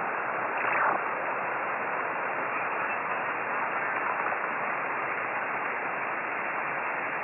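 Steady hiss of band noise from a FlexRadio software-defined receiver tuned to 28.330 MHz upper sideband on the 10-metre band, with no readable signal, heard through the receiver's narrow voice filter. A brief faint trace comes through about half a second in.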